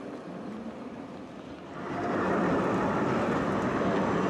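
Street noise with a tram in the distance, then about two seconds in a much louder steady running noise as an Oslo SL95 articulated tram passes close by: wheels on rails and traction motors.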